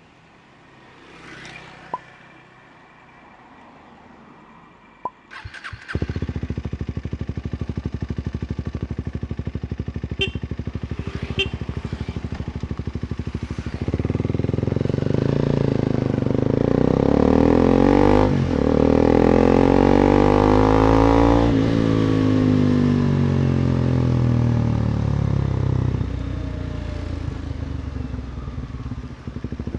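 KTM Duke 250 single-cylinder engine with an Akrapovic exhaust starting up about six seconds in after a few clicks, then idling steadily. From about 14 to 26 seconds it is revved up and down, then it settles back to idle.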